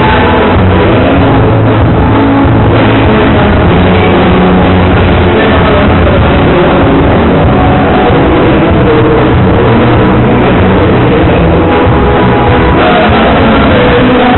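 Live band playing gaúcho dance music, loud and steady, with guitar and drums.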